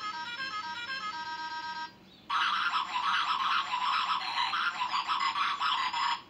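Battery-powered alien toy doll's sound chip playing a stepped electronic beeping tune, then, after a short break about two seconds in, a louder warbling electronic alien noise.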